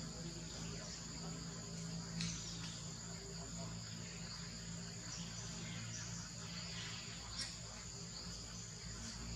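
Steady high-pitched chorus of insects, crickets or cicadas, buzzing without a break. Two short clicks come through it, about two seconds in and again near the end.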